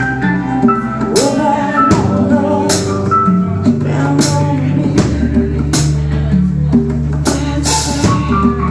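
A rock band playing an instrumental passage of the song: guitar melody over bass and drums, with drum and cymbal hits on a steady beat.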